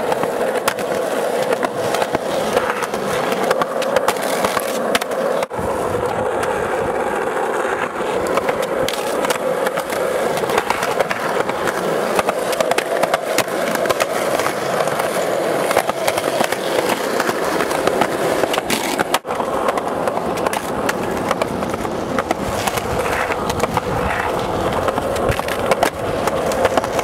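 Skateboard wheels rolling on concrete, with repeated sharp clacks and knocks from pops, landings and the board sliding and grinding on concrete ledges. The sound breaks off abruptly twice where clips are cut together.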